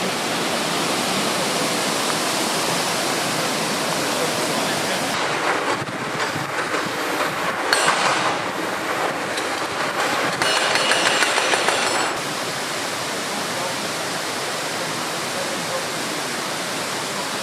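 Waterfall: rushing water giving a loud, steady hiss, shifting in level and brightness a few times.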